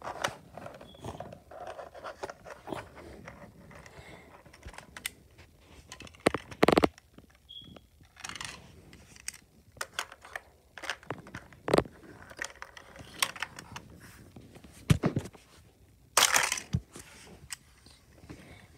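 Hot Wheels car pushed by hand over plastic track and Lego baseplates: scattered light clicks, knocks and short scrapes, the loudest about a third of the way in and again near the end.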